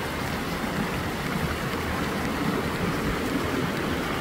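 Fountain water falling and splashing in a steady rush.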